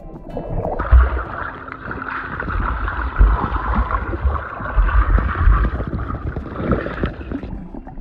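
Water noise picked up by a camera in a fish pond: a steady rushing, gurgling hiss that starts about a second in and stops near the end, with irregular low thumps underneath.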